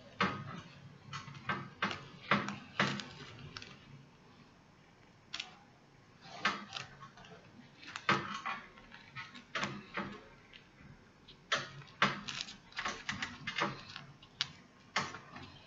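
Hand-sewing noises: irregular clicks and rustles as a needle and thread are pushed and pulled through a mesh weaving cap and hair is handled, with a quieter stretch about four seconds in.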